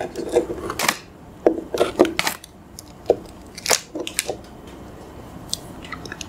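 Crisp cream-filled wafer sticks being handled and set down on a hard plastic tray: a series of light, separate taps and clicks, most of them in the first four and a half seconds.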